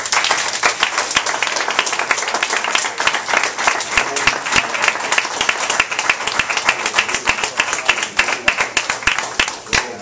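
A congregation clapping and applauding: a dense, loud run of many hands clapping that starts suddenly and dies away near the end.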